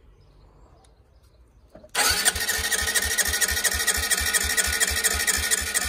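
Honda CB125R's electric starter cranking its single-cylinder engine, with a steady whine and rapid, even pulses. It starts suddenly about two seconds in, and the engine turns over without catching: a cut wire to the fuel pump is keeping fuel from reaching it.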